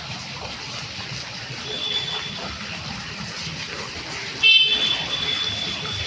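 A vehicle horn honks sharply about four and a half seconds in, over steady traffic noise; a faint high steady tone sounds under it through the second half.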